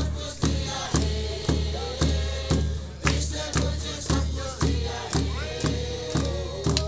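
A group of mixed voices singing a gospel song together in unison, with a large bass drum beaten steadily about twice a second and hand claps on the beat.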